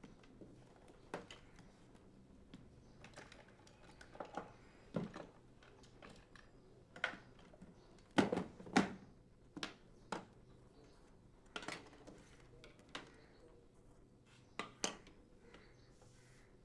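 Scattered light clicks and clacks of cosmetics and the metal fold-out trays of an aluminium makeup case being handled. A louder cluster of knocks comes about eight seconds in.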